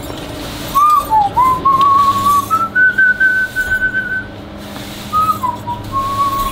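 A person whistling a tune, starting about a second in: a string of clear single notes that rise to a long run of repeated high notes in the middle, pause, then pick up again lower near the end.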